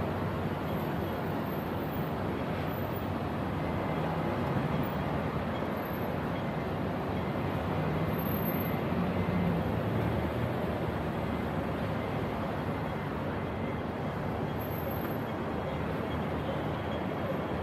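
Steady street traffic: vehicles running along a busy town road, with a low engine hum rising and falling as they pass.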